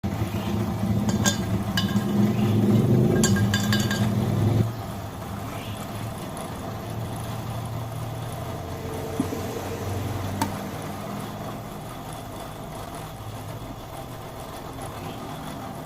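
A motor-driven workshop machine running with a steady low hum and sharp metal clinks; about four and a half seconds in the louder running drops away suddenly, leaving a quieter steady hum with a couple of single clicks.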